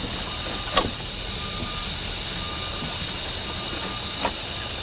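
A steady, engine-like background hum, with two short sharp clicks: one about a second in and one near the end.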